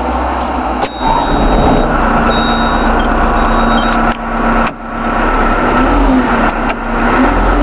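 Diesel engine of a Caterpillar IT914 wheel loader running steadily, its pitch rising and falling slightly near the end.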